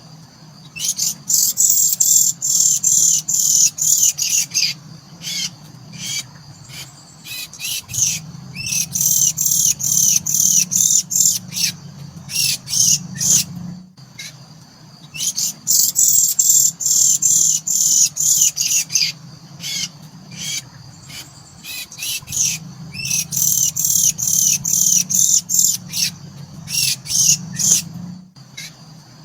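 Javan mynas calling in the nest, rapid high-pitched chattering calls in runs of a few seconds with short pauses between them, over a low steady hum.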